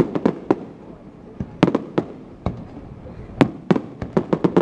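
Fireworks display: aerial shells bursting as sharp bangs and pops, coming in irregular clusters of several in quick succession.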